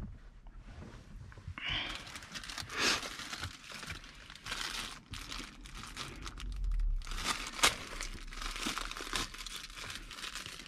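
Clear plastic packaging bag crinkling and rustling as it is handled and pulled open to take out a GPS antenna and its coiled cable, with a few sharp crackles.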